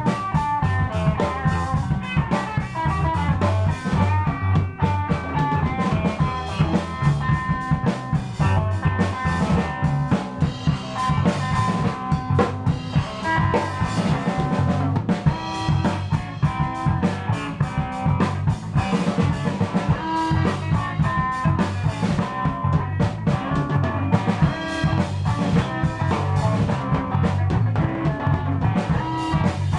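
Rock band jamming live: a drum kit keeps a steady beat of kick, snare and rimshots under guitar, with heavy low end.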